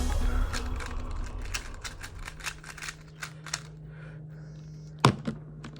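Plastic Rubik's cube layers clicking as they are turned quickly, in irregular rapid clicks, under background music that fades out over the first two seconds. A sharper, louder click comes about five seconds in, with a low steady hum behind.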